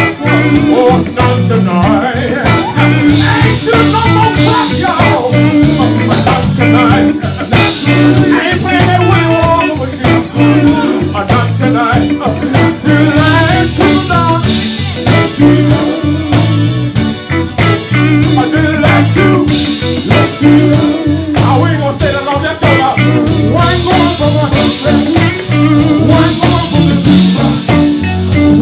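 Live band playing with a steady beat: electric bass, electric guitar and drum kit, with a male singer on a handheld microphone.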